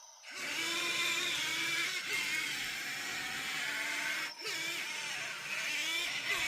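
Small electric motors and gearboxes of 1:50 scale RC construction models whining, their pitch wavering up and down as they work, with a short break about four seconds in.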